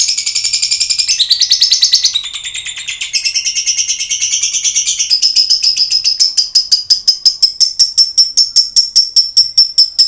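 Female lovebird singing a long unbroken chattering song. It starts as rapid high trills that shift pattern every second or so, then settles about halfway through into an even run of sharp chirps, several a second.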